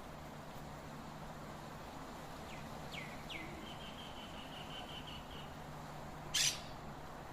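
Birds calling: three short falling chirps, then a quick trill of rapid notes, then one loud, harsh squawk about six seconds in.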